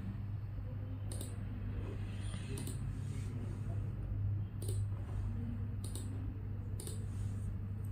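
Computer mouse clicking: five single clicks at uneven intervals of one to two seconds while menus and windows are worked. A steady low hum runs underneath.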